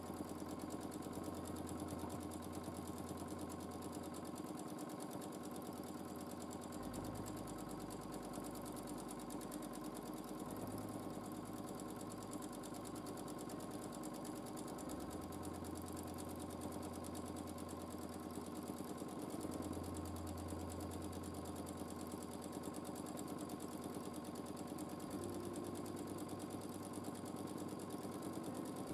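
Domestic sewing machine running steadily during free-motion quilting, its needle stitching in a rapid, even rhythm.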